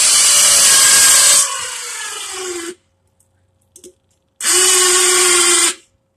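Electric winch motor and gear drive running in two pulls, hoisting a car's front end by its cable: a first run of about three seconds whose pitch falls as the load comes on, then a steady run of about a second and a half.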